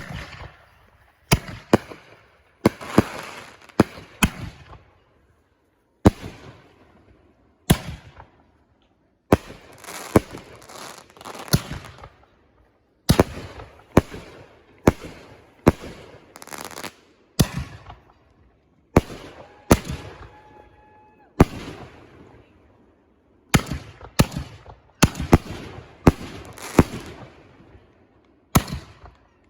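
Fireworks going off: a long run of sharp bangs, about one every second or so at uneven spacing, many followed by a crackling trail that dies away.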